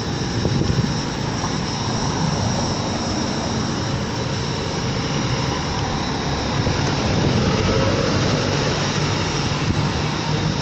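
Steady rushing road and wind noise, as heard while moving along a street, with no distinct events.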